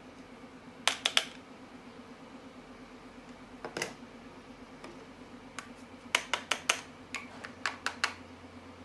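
Sharp, irregular clicks and taps of hard objects over a steady low hum: a quick cluster about a second in, a single tap near the middle, then a rapid run of about eight clicks near the end.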